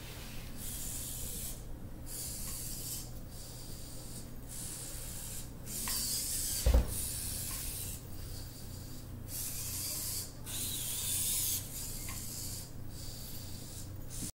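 Small two-legged walking robot's leg servos whirring in stretches of a second or two with short pauses between steps. A single thump about two-thirds of the way through is the loudest sound.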